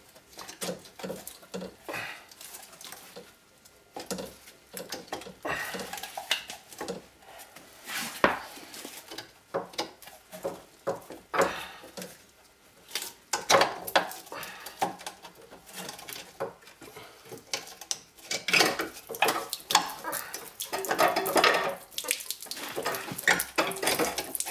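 Irregular metallic clanks, knocks and scrapes as a Lotus Elan M100's radiator and its rusty support frame are tugged and wriggled loose from the chassis. The clatter comes thicker in the second half.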